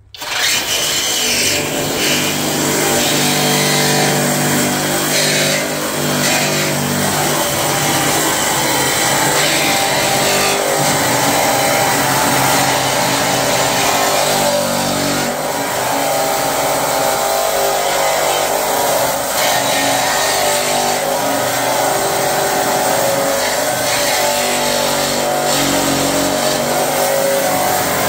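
Flex 24-volt cordless reciprocating saw running steadily under load, its 18-teeth-per-inch light-duty blade sawing into the steel of a trailer frame. The blade's teeth are being stripped off by the heavy steel, so it barely cuts. The saw stops abruptly at the very end.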